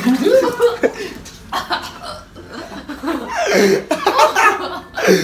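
Several people laughing and chuckling, with a little mixed-in talk.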